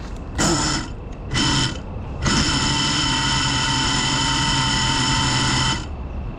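Geprc Cinelog 35 FPV drone's brushless motors spinning up while it sits grounded. There are two short bursts, then one held spin of about three and a half seconds at a steady pitch that cuts off suddenly.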